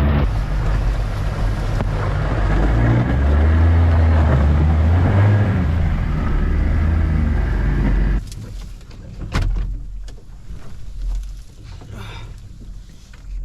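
Aluminum fishing boat's motor running under way, its pitch shifting a few seconds in; it cuts off suddenly about eight seconds in, leaving quieter outdoor noise with a few sharp clicks.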